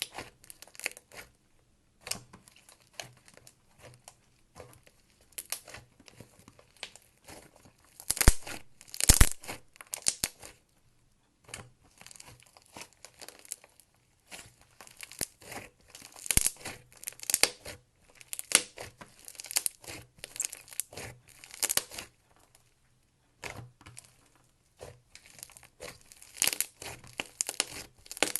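Clay slime being kneaded and stretched by hand, giving irregular runs of sticky crackles and small pops in bouts, with brief pauses between them.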